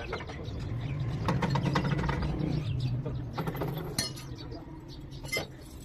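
Runs of rapid mechanical clicking from hand tools working on a tractor during clutch repair, with a sharp metal knock about four seconds in and another near the end, over a steady low hum.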